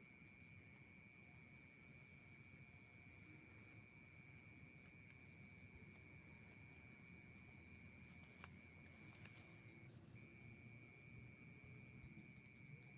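Night insects, crickets among them, calling faintly: a fast, even train of high chirps that pauses briefly twice, over a steady high-pitched buzz that drops out for a moment about ten seconds in.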